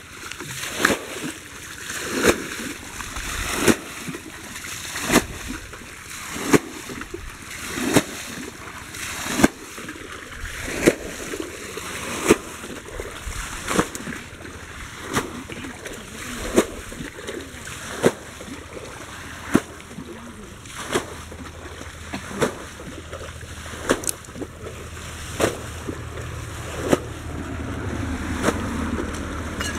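Shallow muddy water splashing and sloshing as people wade and grope for fish, with a sharp knock repeating evenly about every one and a half seconds.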